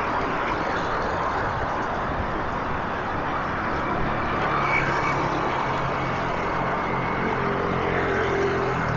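Steady city street traffic noise, with a vehicle engine's low hum joining about four seconds in.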